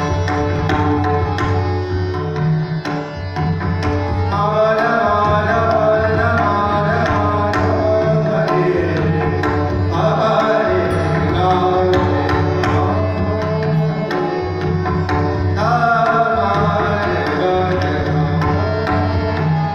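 Pakhwaj and tabla play a steady pattern of deep drum strokes over a sustained drone. They accompany a male singer whose long, gliding phrases in Indian classical style come in several times.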